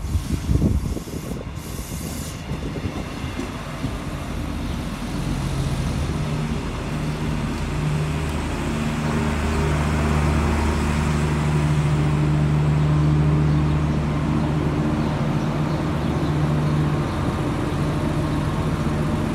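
Renfe Class 599 diesel multiple unit rolling slowly into the platform past the camera. Its diesel engines run with a steady low drone that steps up in pitch a few times.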